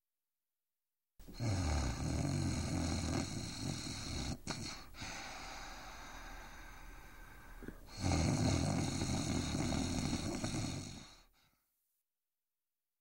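A man snoring: two long, loud snores with a quieter breath between them, starting about a second in and fading out a little before the end.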